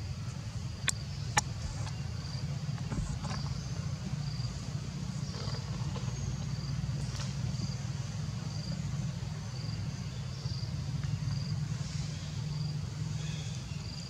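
Steady low rumble of outdoor ambience, with a faint high insect chirp repeating about one and a half times a second. Two sharp clicks come about a second in.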